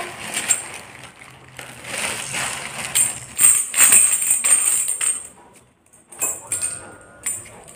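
A baby's plastic rattle toy being shaken, jingling and clicking in a run of strokes that stops a little after halfway, with a few more shakes near the end.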